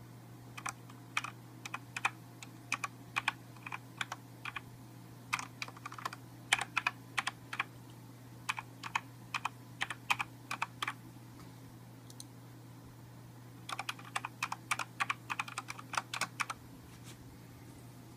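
Keys of a Corsair mechanical keyboard being pressed, in quick runs of clicks that come in four bursts with short pauses between.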